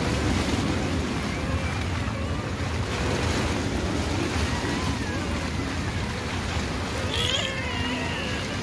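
A newborn puppy whimpering in thin, high-pitched cries, the clearest a wavering squeal about seven seconds in: the half-drowned puppy is being revived and is breathing and crying. A steady rushing of heavy rain runs underneath.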